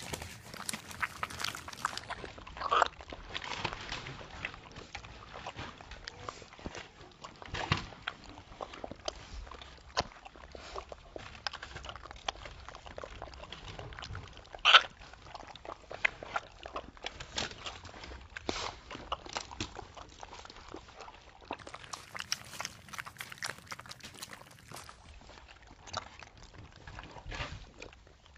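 Rottweiler–Australian Shepherd mix puppies lapping and slurping milky food from a shallow stainless steel pan, a steady patter of irregular wet licks and smacks. A sharp knock stands out about fifteen seconds in, with a smaller one near the start.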